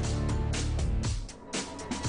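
A short music sting for a TV programme's graphics transition: a steady low bass drone and held tones with several sharp percussive hits, dipping briefly about one and a half seconds in.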